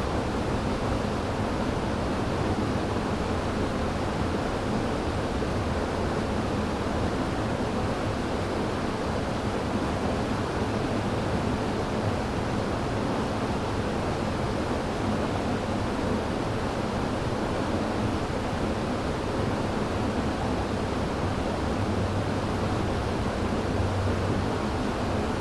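River water rushing and splashing over rocks: a steady, unbroken roar of moving water.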